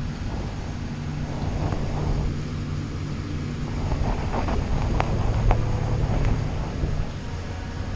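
Steady low hum and rumble of an aquarium tank's water pumps and filtration, with a few faint clicks about halfway through.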